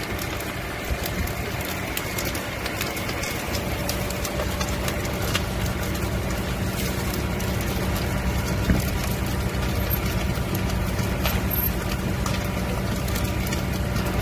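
Caravans burning, with frequent crackles and pops, over the steady hum of an engine running.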